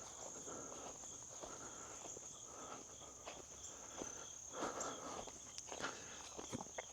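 Insects, likely crickets, trilling steadily in one continuous high thin note, with faint soft footsteps and small rustles.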